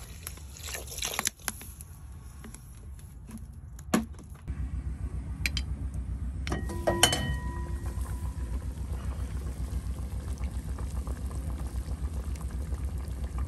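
Water poured from a plastic bottle into a pot of ham-bone broth. About seven seconds in comes a metal clank with a brief ring as the pot's metal lid is set on. Then a steady low rumble as the pot boils.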